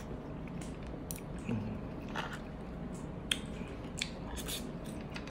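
Close-up eating sounds of a person chewing misua noodle soup and rice: soft wet mouth clicks and smacks, scattered about once a second.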